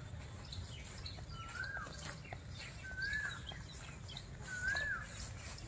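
A bird calling: a short whistled note that rises then drops, repeated three times about a second and a half apart.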